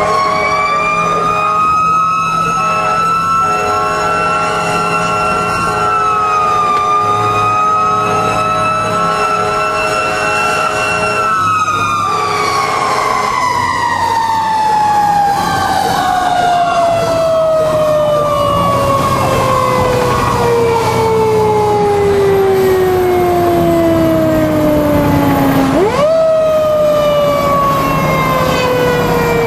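Federal Signal mechanical rotary siren on a fire engine, heard from inside the cab. It is held wound up at a high steady wail with a brief dip, then coasts slowly down in pitch for many seconds. Near the end it is briefly wound back up and begins falling again. For several seconds early in the wail, a steady chord of several horn-like tones sounds under it.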